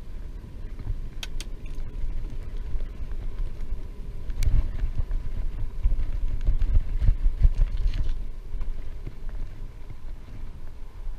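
Wind buffeting the microphone during a bicycle ride: a low, uneven rumble that swells for a few seconds in the middle, with a few sharp clicks near the start.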